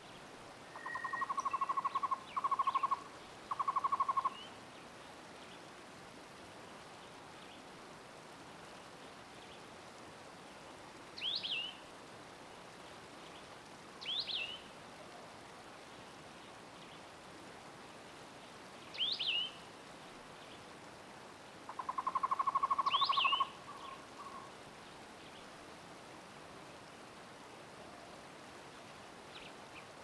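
Forest ambience of birds calling over a steady background hiss. A rapid low trill comes in three short bursts near the start and once more, longer, about two-thirds through, and four short high chirps fall a few seconds apart between them.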